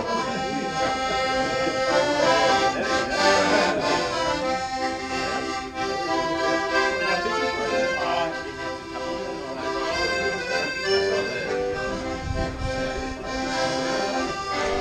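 Accordion playing a tune, with melody and chords sounding together.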